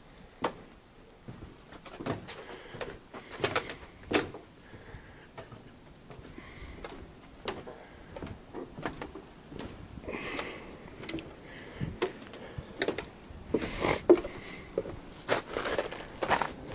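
Footsteps on a wooden deck and porch boards: irregular knocks and clunks, several to a few seconds apart.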